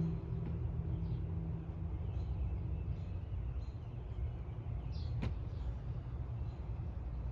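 Outdoor ambience: a steady low rumble with small birds chirping briefly here and there, and one sharp click about five seconds in.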